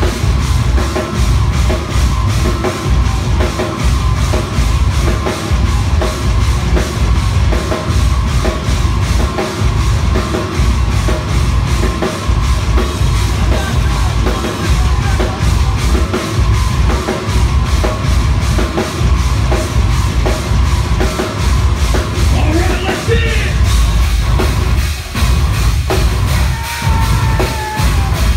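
Metal band playing live: heavily distorted, low-tuned electric guitars over a drum kit, the bass drum pounding in a steady driving pulse.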